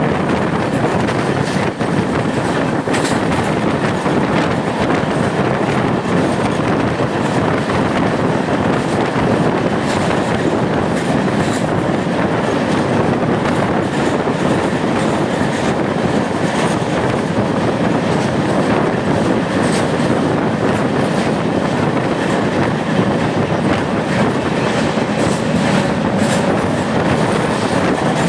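Passenger train running at speed, heard from an open coach doorway: a loud, steady rumble of wheels on rails with scattered clickety-clack clicks, passing through a rock tunnel.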